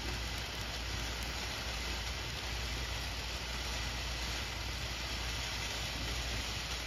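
Silent Insanity fountain firework spraying sparks with a steady, even hiss.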